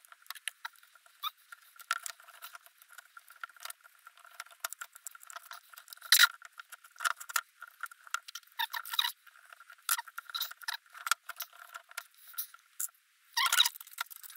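Hands working small brake caliper parts, a piston and its rubber dust boot: a quick, irregular run of light clicks, taps and small squeaks, with a sharper click about six seconds in and a dense flurry near the end.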